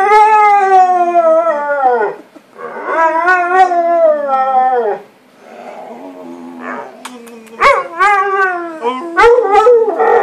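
Dog howling in a string of long drawn-out calls, the first two about two seconds each and dropping in pitch at their ends, a quieter stretch in the middle, then two shorter howls near the end. Excited howling, the dog 'talking' to a person it loves.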